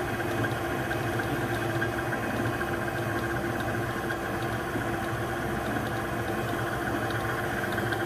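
KitchenAid stand mixer running steadily at a slightly raised low speed, its motor humming evenly as the beater works thick cream cheese and egg batter in the steel bowl.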